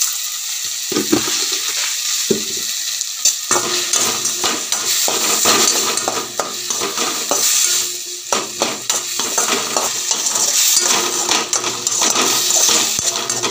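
Chopped onion, garlic and ground tomato sizzling in oil in a steel kadai, with a perforated steel spatula scraping and clicking against the pan as it is stirred. The stirring gets busier a few seconds in.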